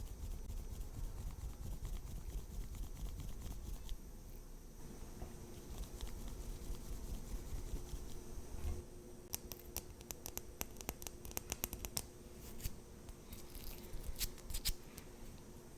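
Makeup products and tools handled close to the microphone: soft handling noise, then from about nine seconds in a quick run of light clicks and taps.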